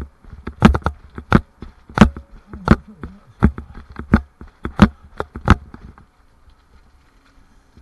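Footsteps on a hard walkway surface, a sharp knock about every 0.7 seconds at a walking pace, stopping about five and a half seconds in.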